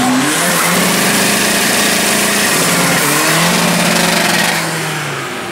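Car engine revving hard while its tyres spin and screech on asphalt in a smoky wheelspin launch. The engine note rises and falls a few times, and the sound eases off near the end.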